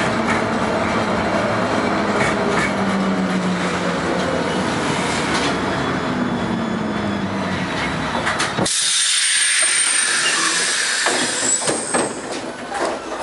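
LM-68M tram running on the rails, a rumbling ride with a faint motor hum that glides in pitch. About two-thirds through, the rumble stops abruptly and a loud hiss of air takes over, with a thin high tone in it.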